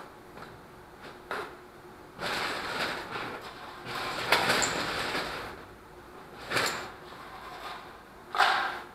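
Electrical wire being pulled by hand through the wing's front spar, sliding and rubbing in four pulls, each up to a second or so long, with a short click about a second and a half in.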